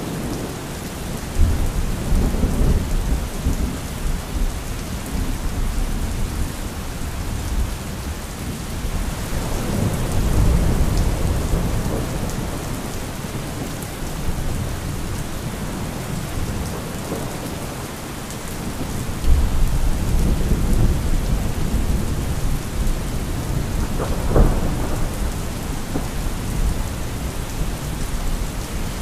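Thunderstorm: steady rain hiss with thunder rolling in low rumbles three times, each building and fading over a few seconds, and a short sharper crack near the end.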